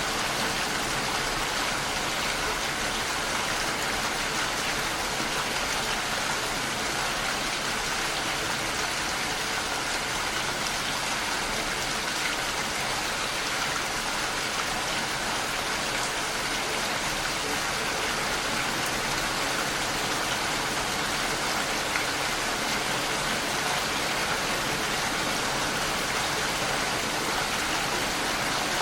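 Steady, even rain falling, with no thunder or other sounds.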